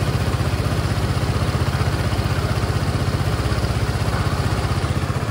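Kymco Racing S150 scooter's single-cylinder engine idling steadily with an even, fast pulse.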